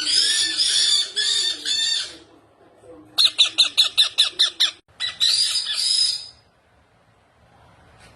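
Ringneck parrot squawking in loud, harsh calls: a long call, then a rapid run of about ten short squawks, then another call, after which the calling stops about six and a half seconds in.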